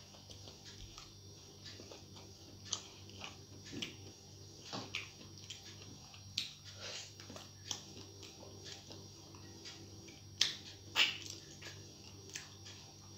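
Close-miked eating by hand: scattered wet mouth clicks and smacks from chewing rice and rohu fish curry, with the two loudest smacks about ten and a half seconds in, over a low steady hum.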